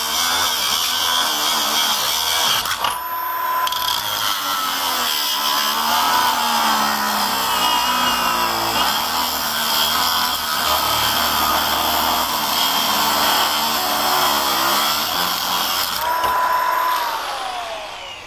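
Battery-powered angle grinder with a cut-off disc grinding through a half-inch steel security chain link, loud and steady, easing briefly about three seconds in. Near the end the cut finishes and the motor whine falls away as the disc spins down.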